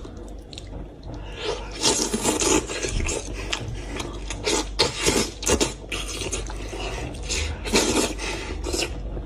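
Wet, sticky squelching and tearing as fingers pull meat off a sauce-covered braised goat's head, with irregular lip smacks and the sucking of sauce from the fingers.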